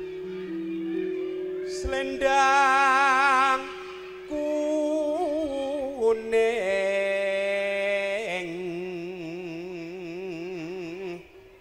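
Javanese campursari music: a singer holding long notes with a wide vibrato over sustained electronic keyboard chords that step in pitch.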